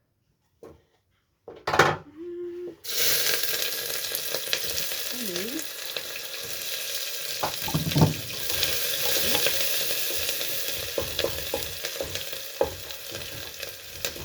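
After a couple of knocks, hot oil in a pan suddenly starts sizzling about three seconds in, as food goes into it, and keeps up a steady hiss, with scattered clinks and scrapes of a utensil stirring.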